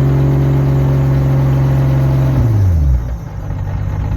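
Toyota Chaser's turbocharged inline-six held at a steady raised rev, then let back down to idle about two and a half seconds in. The revs are held to check the alternator's charging voltage on a freshly replaced belt.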